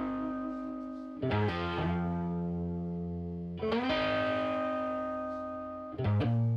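Background music: sustained electric guitar chords with distortion, changing chord about every two and a half seconds and fading between changes.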